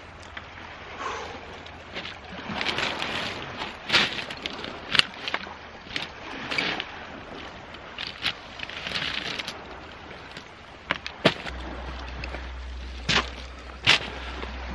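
Boots crunching over beach pebbles and driftwood, with a run of sharp knocks and clatters as fishing gear and a backpack are handled and set down on the stones.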